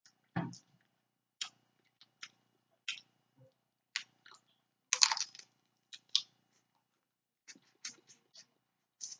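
Close-up eating sounds of snow crab legs: a string of irregular short, wet clicks and crackles from chewing and working the shell meat, the loudest about five seconds in.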